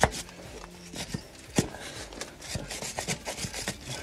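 Hand wire brush scrubbing brake dust out of a truck's disc-brake caliper, the bristles rasping against the metal in short, irregular strokes, with a few sharp knocks of the brush against the caliper.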